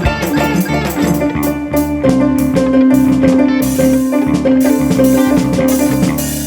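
Live Acehnese ensemble music: fast, dense percussion strokes over a held low tone, with bright noisy accents joining about halfway through. The ensemble stops together near the end and the sound rings away.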